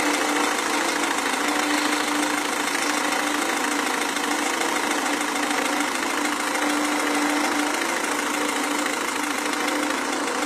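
Renault Scénic II's 1.5 dCi four-cylinder diesel idling steadily with a constant clatter, the engine noise that the title links to its injection.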